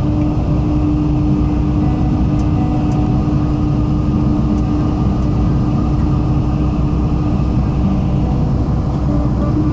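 Diesel railcar running steadily: a low rumble with a constant hum, and a few faint clicks.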